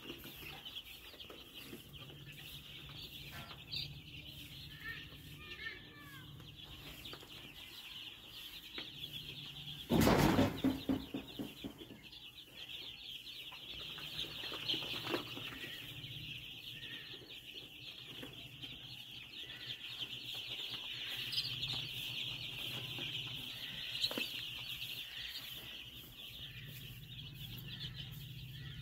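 A large flock of baby chicks peeping without pause, a dense high-pitched chorus of many overlapping cheeps. About ten seconds in, a loud short burst of noise cuts across the chorus and dies away within a second or two.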